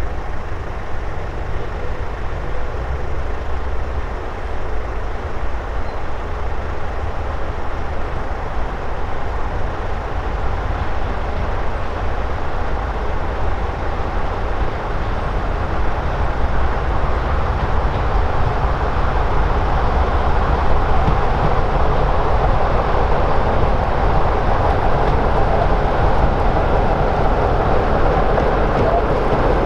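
BR Class 44 'Peak' diesel locomotive D8 Penyghent's Sulzer twin-bank 12-cylinder engine running steadily as the train approaches. It grows louder over the second half as the locomotive nears.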